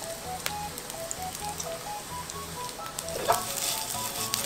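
King oyster mushroom strips and sliced red chilli sizzling in hot sesame oil as they are stir-fried in a wok, with a sharp knock about three seconds in. Light background music with a plucked melody and a pulsing bass plays underneath.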